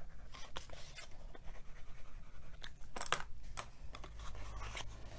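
An adhesive tape runner scratching along a flap of cardstock, then the cardstock box being handled and folded, with rustling and a few sharp clicks about halfway through.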